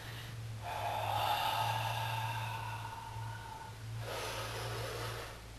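A man breathing hard through his nose: one long breath of about three seconds with a faint whistle, then a second, shorter breath about four seconds in.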